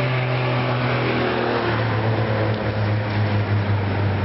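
A motor vehicle's engine running steadily, its pitch dropping a little about two seconds in as it eases off.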